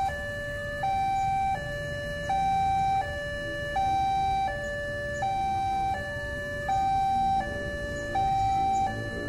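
Railway level-crossing warning alarm sounding: an electronic two-tone signal that alternates high and low, each tone held about three-quarters of a second, repeating steadily. It signals that the barriers are down and a train is approaching.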